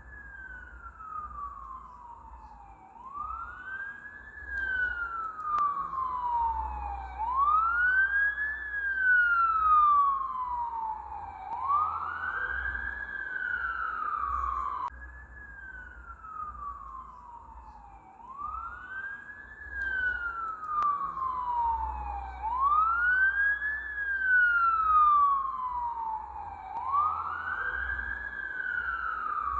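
Ambulance siren sounding a slow wail: each cycle rises quickly in pitch and then falls slowly back, about every four seconds. The siren grows louder and fades away twice.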